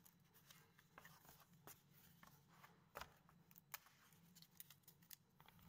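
Very faint taps and light scrapes of a cut cardboard box blank being lifted and handled on a cutting table, with one sharper tap about three seconds in, over a low steady hum.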